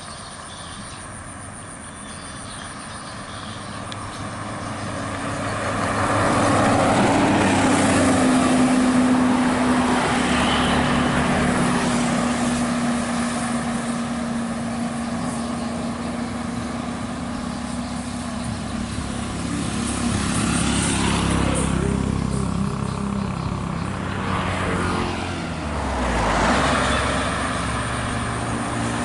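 Heavy road vehicles, chiefly large intercity buses, passing close by with engine and tyre noise. One swells up to a loud peak about a quarter of the way in and holds a steady engine note. More go by near the end, one with a falling pitch as it passes.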